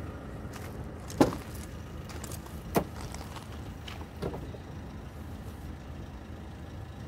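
Tailgate of a Jeep SUV being unlatched and lifted open: a sharp click about a second in, a second click under two seconds later, and a softer knock at about four seconds, over a steady low rumble.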